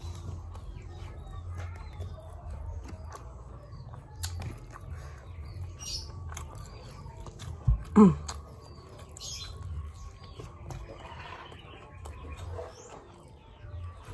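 Quiet eating sounds: a spoon clicking on a plastic plate and chewing, with faint bird chirps in the background. About eight seconds in, a sudden knock is followed by a short falling squeak, the loudest sound here.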